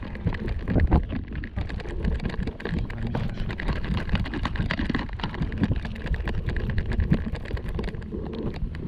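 Wind buffeting a handheld camera's microphone: a steady low rumble with many small knocks and rustles.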